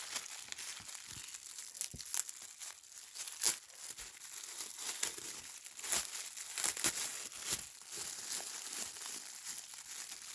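Crinkly packaging of a fidget toy blind bag being handled and torn open: steady crackling with sharp louder crinkles every so often.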